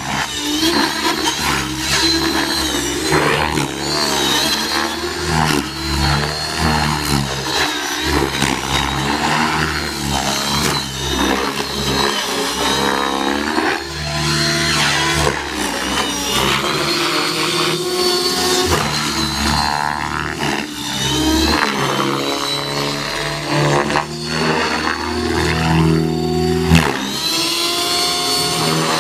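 Electric motor and main rotor of a T-Rex 600E radio-controlled helicopter whining and whirring in flight, the pitch rising and falling continually as it flies aerobatic manoeuvres.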